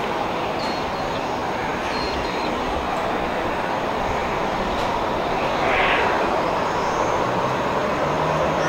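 Airbus A320 jet engines at takeoff power as the airliner accelerates down the runway: a steady, distant rushing roar that grows a little louder about two-thirds of the way through.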